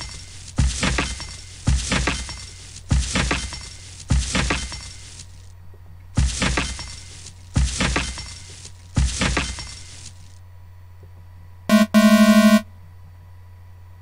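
Web page sound effects: a glass-shattering crash plays seven times in about nine seconds, once for each to-do item deleted, each crash ringing out for about a second. About twelve seconds in, a short buzzing error tone sounds, the warning for trying to add an empty item.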